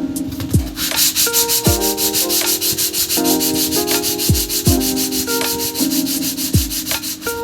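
Background electronic music: sustained chords over a steady beat with deep bass thumps and quick hi-hat ticks. Under it runs a dense hissing rubbing noise.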